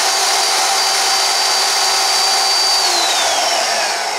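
Portable band saw mounted as a small vertical metal-cutting band saw, running steadily at its top speed of about 300 feet per minute, with a high whine over the motor noise. About three seconds in the whine glides down in pitch and the sound gets a little quieter.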